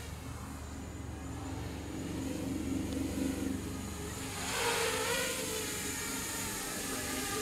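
Furibee X215 Pro racing quadcopter's four brushless motors and propellers whining in flight, swelling louder with gliding pitch about four and a half seconds in as it comes in low and close.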